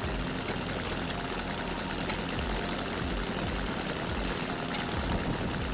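Scale model 18-cylinder two-row radial engine, based on the Pratt & Whitney R-2800 Double Wasp, running steadily and turning a wooden propeller.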